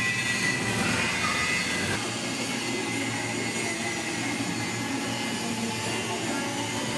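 Steady industrial din of a steel fabrication workshop, a broad machine-like drone, which changes character about two seconds in.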